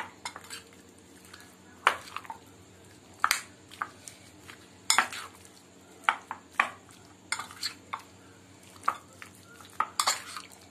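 A spoon stirring chicken pieces in a thick cornflour-and-spice marinade in a glass bowl, clinking against the glass at irregular intervals of about a second, several of the clinks loud.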